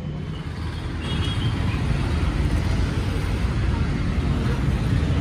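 Road traffic running past on a busy street, a steady low rumble that grows louder about a second in as a vehicle comes closer.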